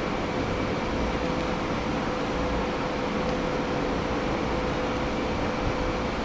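Steady mechanical whir of a running machine, with a constant humming tone and no separate knocks or clinks.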